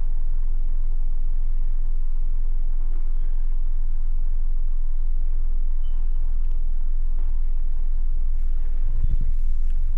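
Dayton Audio Ultimax 10-inch DIY subwoofer playing a 21 Hz test tone, heard from outside the house as a steady, loud, deep drone. A brief thump comes about nine seconds in.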